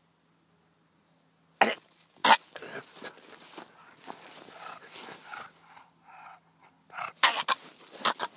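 English bulldog snorting and grunting at close range: two loud, sharp snorts about two seconds in, softer grunts through the middle, and another run of loud snorts near the end.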